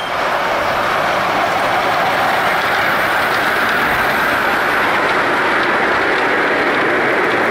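Ride-on miniature railway train rolling past close by: a steady, loud clatter and rumble of its wagons' wheels on the rails.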